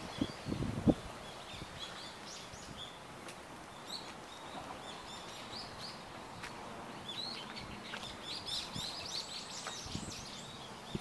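Small birds chirping outdoors: many short, high chirps, busiest in the second half. A few low thumps in the first second are the loudest sound.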